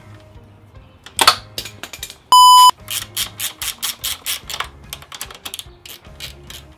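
Socket ratchet clicking rapidly, about six clicks a second, as a bolt is turned at the motorcycle's seat mount, with a sudden metallic clatter about a second in. A short, very loud electronic beep at one steady pitch cuts in for under half a second just before the ratcheting.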